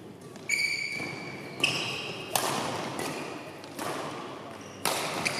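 Badminton rally on an indoor court: two short high squeaks of shoes on the court mat in the first two seconds, then sharp racket strikes on the shuttlecock about two and a half and five seconds in.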